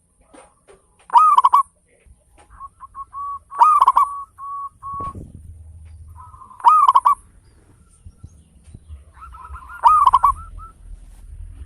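Zebra dove (perkutut) cooing: four loud call phrases about three seconds apart, each a quick run of short notes, with softer staccato notes between them.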